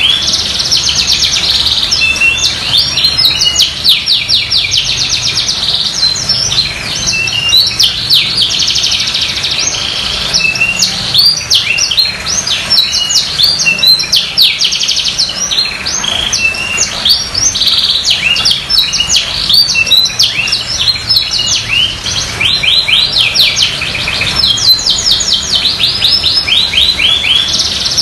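Domestic canary in full song: a long, high-pitched run of fast trills and chirps with hardly a break.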